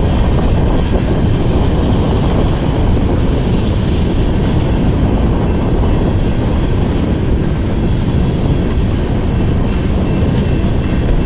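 Freight train cars rolling past, with a loud, steady rumble of steel wheels on rail.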